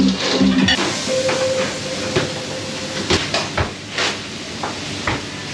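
Commercial restaurant kitchen during service: a steady hiss, like food sizzling or steam, with several sharp clanks of pans and utensils in the second half.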